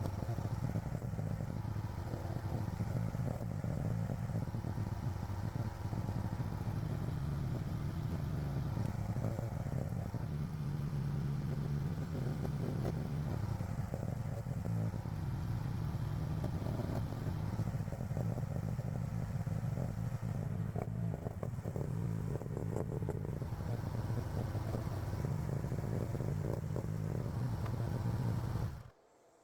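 AGT LH12R mini excavator's engine running steadily with the clatter of the machine at work, in audio sped up about tenfold. The sound cuts off suddenly about a second before the end.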